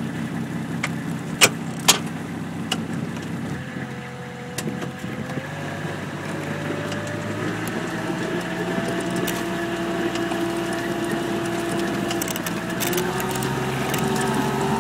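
Kubota RTV 1140 CPX's three-cylinder diesel engine running as the machine drives off on rubber tracks through snow, with a whine that rises in pitch from about four seconds in and gets louder as it gathers speed. Two sharp knocks sound about a second and a half and two seconds in.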